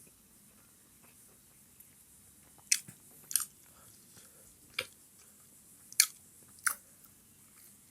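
Close-miked eating: chicken momos being chewed, heard as five short, sharp wet mouth clicks spaced about a second apart over a quiet background.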